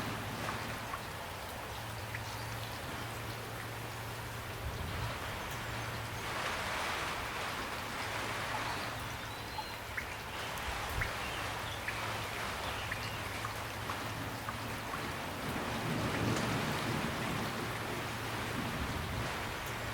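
Steady gentle rain, an even hiss with scattered individual drop ticks, over a faint steady low hum.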